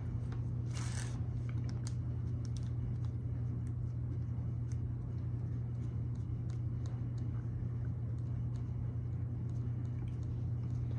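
Light clicks and taps of small utensils against iced cookies, plastic wrap and the tabletop, scattered irregularly over a steady low hum.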